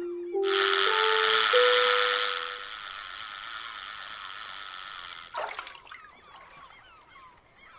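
Animation sound effects: a few rising notes, then a sudden loud rush of water that fades over about five seconds, with a brief sharp noise near its end.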